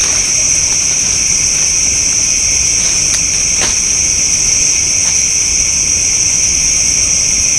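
Dense chorus of night insects, a steady high-pitched shrill that never lets up, with a couple of faint clicks about three seconds in.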